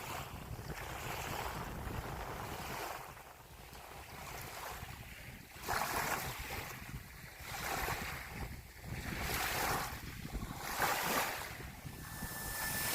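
Wind and small waves lapping at a lakeshore: a soft hiss that swells and fades every second or two, with wind rumbling on the microphone.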